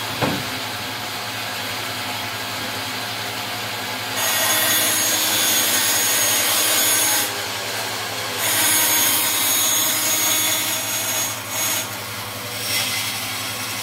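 Large bandsaw running steadily. Its blade cuts through a wooden board in two louder passes of about three seconds each, the first starting about four seconds in and the second about eight and a half seconds in.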